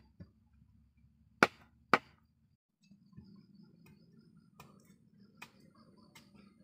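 Two sharp hammer blows on a bamboo bed frame, about half a second apart. After them come a few lighter knocks of a machete trimming bamboo poles.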